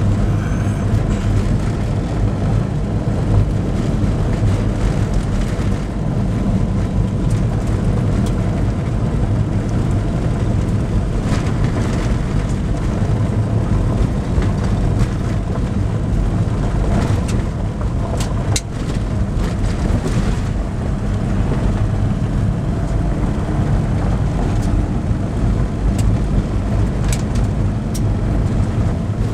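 A car driving on a gravel road: steady engine and tyre rumble, with a few light ticks scattered through.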